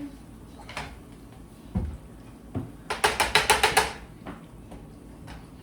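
Kitchen cookware clatter: a low thump and a knock, then a quick run of about eight sharp metallic clicks, as of a utensil or lid rattling against a pot.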